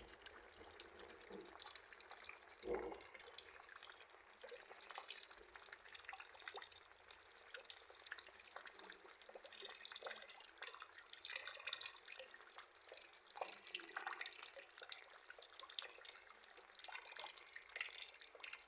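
Faint rain dripping and splashing into a nearly full rainwater storage container, many small irregular drops. One dull knock about three seconds in.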